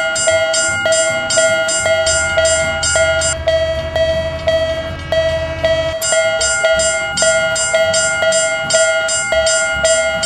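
Railroad crossing warning bell ringing, a repeated 'kan-kan' clang at an even rhythm of about two to three strokes a second. A low rumble comes in under it from about two seconds in to about six seconds in.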